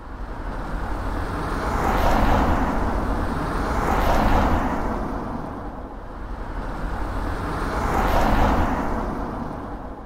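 Cars driving past one after another on a road, with engine and tyre noise swelling and fading three times.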